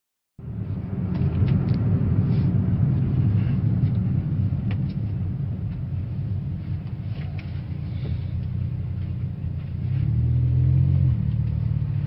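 A Toyota Vios with its four-cylinder 1NZ-FE engine under way: a steady low rumble of engine and road, freshly remapped, that swells louder about ten seconds in as the car pulls harder.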